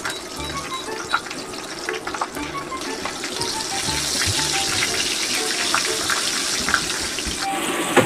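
Breaded chicken sizzling and crackling in hot oil in a frying pan. The sizzle grows louder about three seconds in, as a second piece is laid in the oil.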